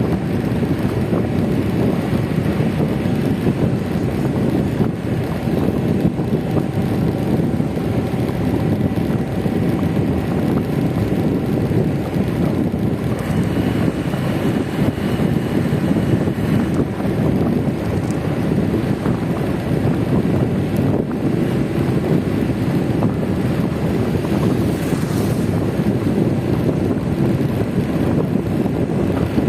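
Steady rush of wind buffeting the microphone on a moving motor scooter, with vehicle noise underneath.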